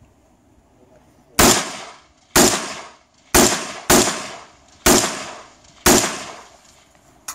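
Six rifle shots fired from the prone position, about a second apart, with one pair closer together; each shot is loud and trails off in a long echo.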